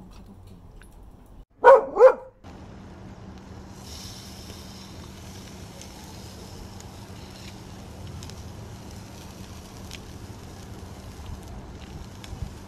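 A border collie barks twice in quick succession, about two seconds in. After that there is only a faint steady hum and hiss.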